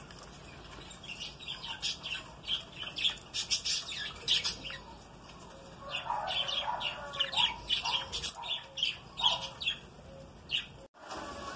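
Budgerigars chattering in a stream of quick, short chirps and squawks, busier from about six seconds in. The sound cuts out for a moment near the end.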